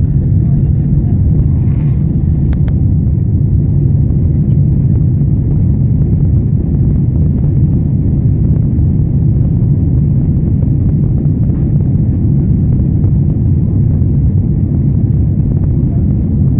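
Aircraft cabin noise during take-off: the steady, low rumble of the jet engines and airflow.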